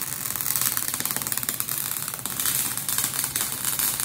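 MIG (gas metal arc) welder arc burning with the wire feed speed set way too fast, heard as a loud, rapid crackle of clicks; this sound is the sign of too fast a wire speed, which makes the weld run cold.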